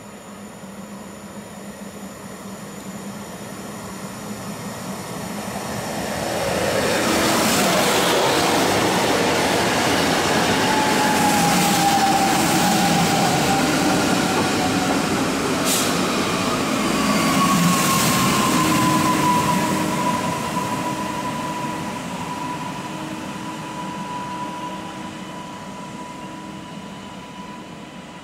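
A coupled pair of PESA Elf EN63A electric multiple units approaching and running along the platform. The wheel-and-rail rumble builds to a loud pass and then fades, with an electric drive whine that falls in pitch and then holds steady. A single sharp click comes about halfway through.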